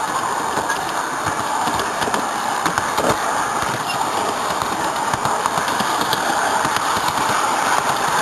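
Garden-scale model train running along its track, heard up close from one of its own cars: a steady rolling and motor noise with many small clicks from the wheels on the rails.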